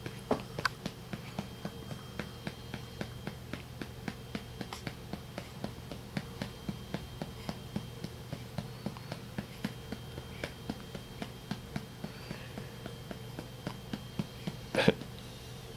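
Rhythmic patting on a baby's back to bring up a burp, about three pats a second, with one louder thump near the end.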